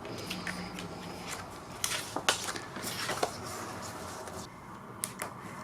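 Quiet handling of paper craft supplies and photos: a few light taps and rustles as they are moved about on the table.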